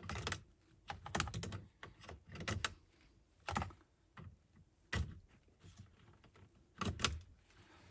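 Scattered light plastic clicks and taps, a few seconds apart, as a replacement turn-signal/wiper multi-function switch is worked into its slot in the steering column.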